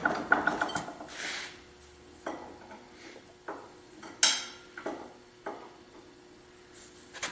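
Metal tools clinking and knocking against the compressor pump's metal parts: a few separate knocks spaced about a second apart, the loudest about four seconds in, with a faint steady hum underneath.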